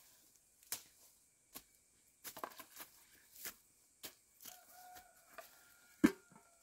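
Irregular rustling and handling noises: crinkles and small clicks, with one sharp knock about six seconds in.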